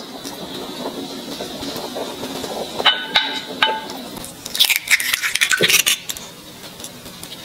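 A few sharp clinks that ring on briefly, then about a second and a half of loud crackling: eggs being tapped and their shells broken open over a glass measuring cup.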